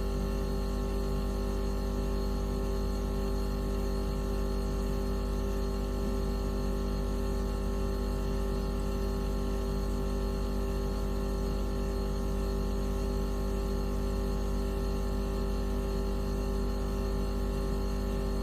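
Steady electronic hum made of several sustained synthesized tones, strongest in a low drone with a clear mid-pitched tone above it. It is an 'anti mosquito' repellent tone.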